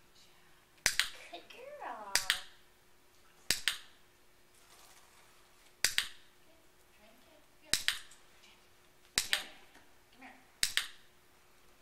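Dog-training clicker clicked seven times, one to two seconds apart, each a sharp quick double click, marking the puppy for stepping onto its bed.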